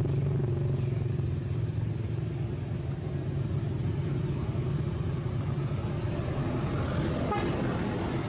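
A steady low engine hum, as of motor vehicles running nearby.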